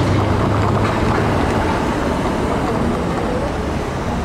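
Street traffic noise: a Flexity low-floor streetcar and cars passing close by. A steady rumble is heaviest in the first second or so, then eases a little.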